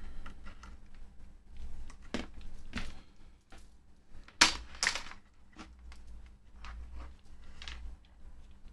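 Several sharp clicks and taps of tools being handled during bench work on an opened multimeter, two loud ones close together about four and a half seconds in, over a faint low hum.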